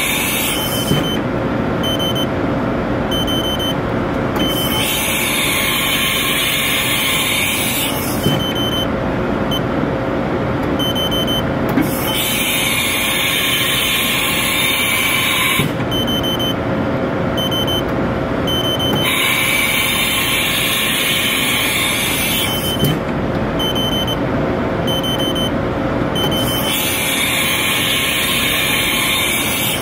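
Haas TM-1 CNC vertical mill cycling through automatic tool changes over a steady machine hum. A high hiss about three and a half seconds long comes back every seven seconds or so. In the gaps between the hisses, a short beep sounds about once a second.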